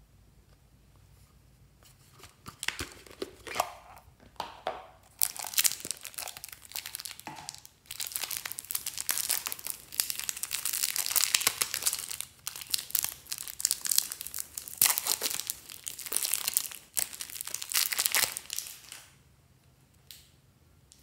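Plastic packaging and small plastic containers being handled, opened and emptied: crinkling and rustling in irregular bursts, starting about two seconds in and dying away about two seconds before the end.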